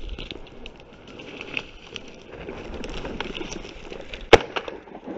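Rustling and crunching through dry grass and brush, then a single shotgun shot about four seconds in, fired at a flushed pheasant.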